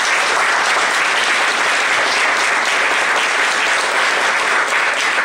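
Audience applauding steadily, tapering off at the very end.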